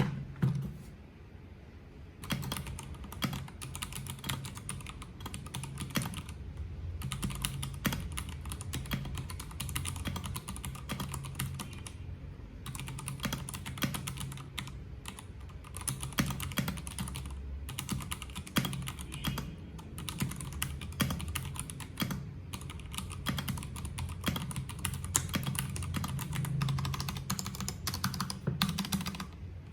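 Typing on a Keycool KC84 mechanical keyboard with PBT double-shot keycaps: a fast, irregular stream of key clacks. It stops briefly about a second in and again around twelve seconds.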